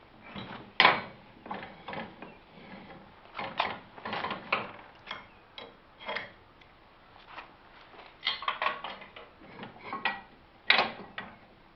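Irregular metallic clanks and knocks as a steel PTO driveshaft is handled and fitted back onto a rotary mower, with the loudest knocks about a second in and near the end.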